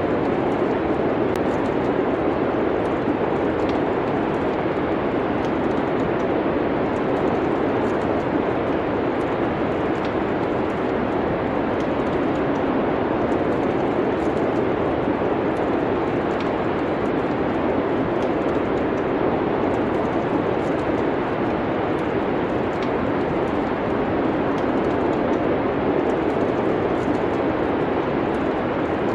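Steady wintry wind noise with faint, scattered crackles from a fireplace.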